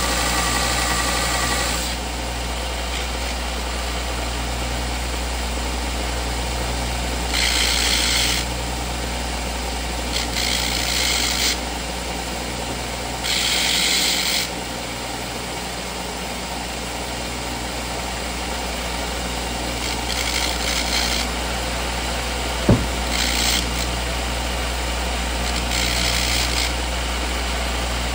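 Electric grinder running steadily, with a metal part pressed to the wheel in about six short grinding bursts of harsh hiss, the part being ground down to fit flush. One sharp click comes late on.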